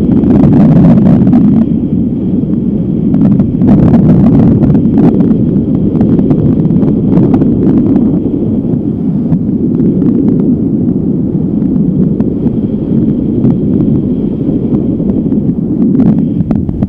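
Strong wind buffeting the microphone: a loud, continuous low rumble with frequent sharp gusts.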